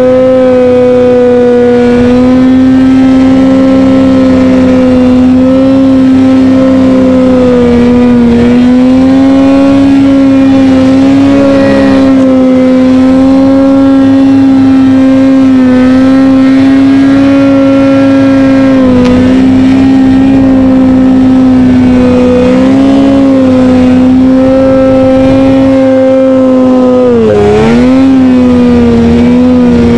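Ski-Doo XP 800 snowmobile's two-stroke twin engine running loud and held at high, fairly steady revs while riding, the pitch wavering slightly. Near the end the revs drop sharply and climb straight back.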